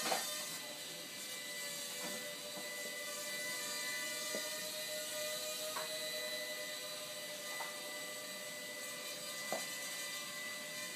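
Small electric motors of a Walkera Ladybird V2 micro quadcopter whining steadily, their pitch drifting slightly, with a few faint ticks.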